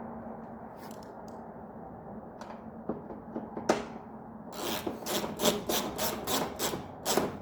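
A low steady hum, then from about halfway in a quick run of rough scraping strokes, about four a second.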